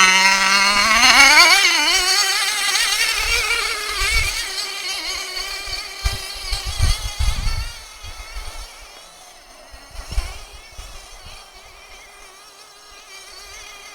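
Small pull-start engine of a radio-controlled car, running steadily and then revving up about a second in. Its note fades away over the next several seconds as the car moves off, with a few low rumbles along the way.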